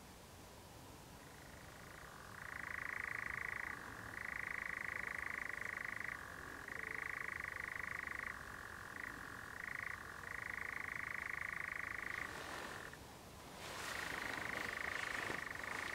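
European nightjar churring: one long continuous churr that keeps shifting back and forth between a higher and a lower pitch, breaking off briefly near the end before starting again.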